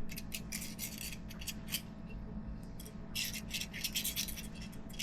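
Quick scratchy clicks and scrapes of plastic on plastic as a super glue bottle's nozzle is rubbed around a 3D-printed wheel rim to spread the glue. They come in two runs with a short lull about two seconds in.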